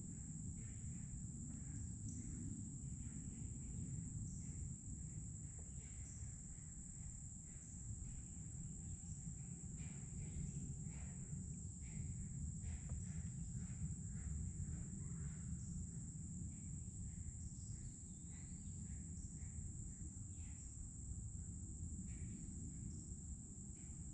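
Chorus of insects: a steady high-pitched drone that never lets up, over a low steady rumble.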